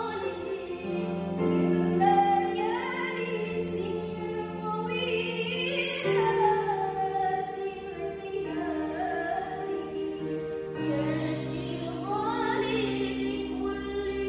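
Music: a voice singing a slow, wavering melody over held chords that change every few seconds.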